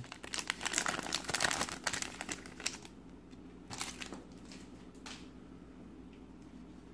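Foil trading-card pack wrapper crinkling as it is torn open and the cards are slid out, for about the first three seconds. Two brief rustles follow as the cards are handled.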